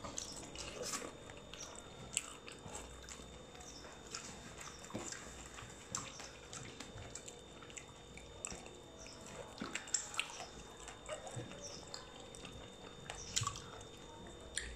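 Faint eating sounds of two people eating kodo millet dhido and sukuti by hand: chewing, lip smacks and finger-licking, and fingers working the food on metal plates, heard as many small scattered clicks and wet ticks.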